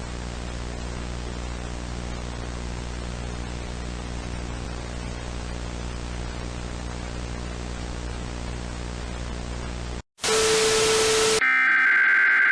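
Steady static hiss over a low hum for about ten seconds, then it cuts off suddenly. A loud burst of noise with a steady tone lasts about a second. Near the end the screeching two-tone digital data burst of an Emergency Alert System SAME header begins.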